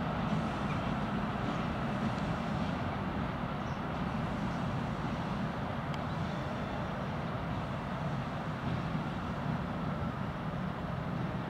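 ChME3 shunting diesel locomotive, with its six-cylinder diesel engine, running as it rolls slowly along the track: a steady low rumble.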